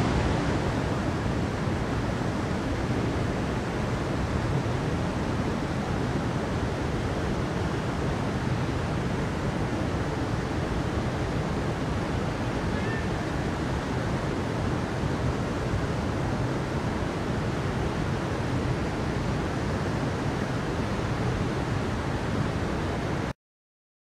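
Steady rush of a mountain stream flowing over rocks, cutting off suddenly near the end.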